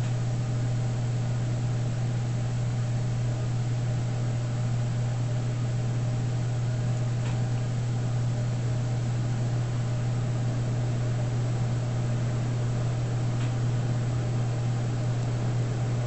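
A steady low hum over an even hiss, unchanging in level, with a couple of faint ticks.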